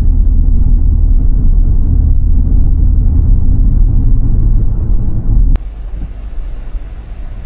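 Vehicle engine and road rumble, loud and low, heard from close by. About five and a half seconds in there is a sharp click, and the rumble drops to a quieter level.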